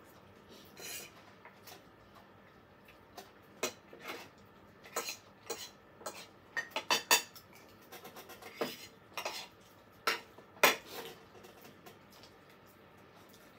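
Metal fork clinking and scraping against a dinner plate during a meal: irregular sharp clicks, most frequent in the middle of the stretch, with a quick cluster of several clinks about seven seconds in.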